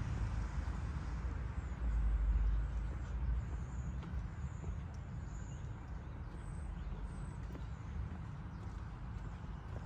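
Outdoor town ambience: a steady low rumble, with the hiss of a passing car fading away in the first second and a few faint, high bird chirps.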